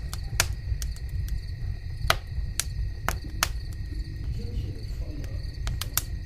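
Steady high-pitched insect trilling, like crickets, over a low rumble, broken by about a dozen sharp irregular clicks; the loudest click comes about two seconds in.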